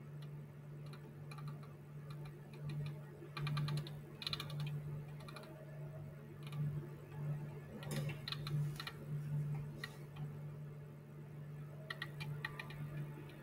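Bursts of rapid, fine clicking from a computer as pages are scrolled, in three clusters about four, eight and twelve seconds in, over a steady low hum.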